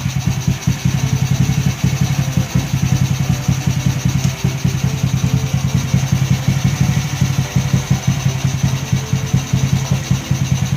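Honda Wave motorcycle's small single-cylinder four-stroke engine idling steadily, with a fast, even pulse.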